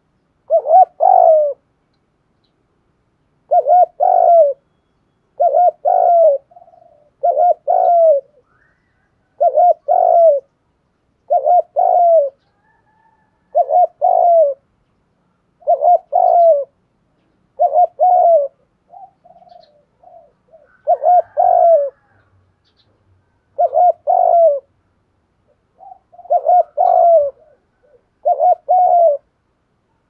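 Spotted dove cooing loudly: about thirteen short coo phrases, one roughly every two seconds, each of two or three notes.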